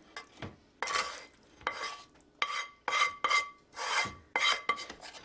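A utensil scraping cooked chicken livers and onions out of a skillet, in about ten quick strokes, each with a faint ringing note from the pan.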